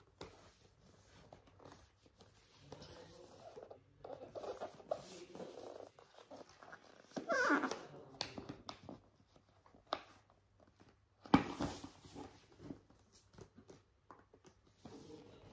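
Cardboard drone box being handled and opened: scrapes, taps and rustles of the packaging, with a sudden loud rasp about eleven seconds in. A short wavering whine comes about seven seconds in.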